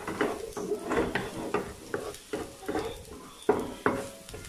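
Wooden spatula scraping and tapping on a nonstick frying pan, stirring minced garlic that sizzles lightly in oil. The strokes come one after another, with two sharper knocks about three and a half seconds in.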